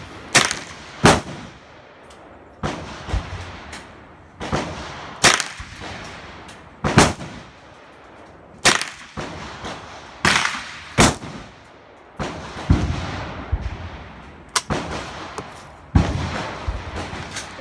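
Gunfire: a string of single shots, roughly one a second but unevenly spaced, each with a ringing echo trailing off after it.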